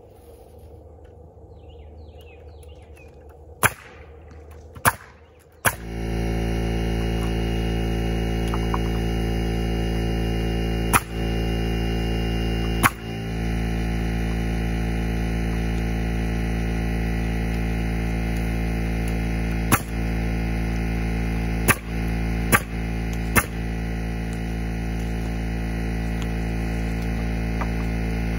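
A few sharp clicks over a quiet background, then a loud, steady hum with many overtones starts abruptly about six seconds in and holds on, interrupted by several sharp clicks.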